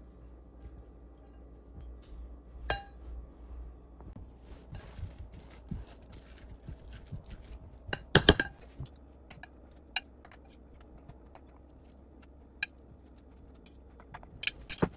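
Silicone spatula stirring and scraping a thick chicken and cheese filling in a white baking dish, with scattered taps and clinks against the dish; the loudest cluster of knocks comes about eight seconds in, and a few sharp taps come near the end.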